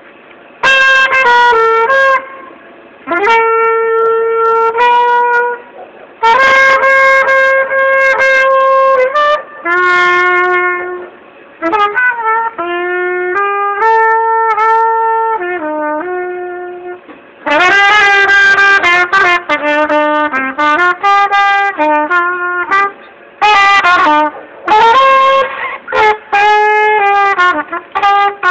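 Trumpet playing a slow melody in phrases of held notes and short runs, with brief pauses for breath between phrases.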